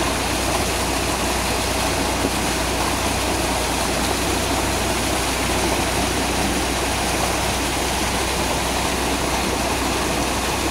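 A tubewell's discharge pipe pouring a thick, steady jet of water into a concrete tank, the water gushing and churning without a break. Under it runs the steady low hum of the tractor engine that drives the pump.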